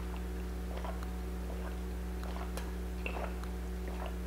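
Faint swallowing and small wet mouth clicks from drinking punch from a cup, over a steady low electrical hum.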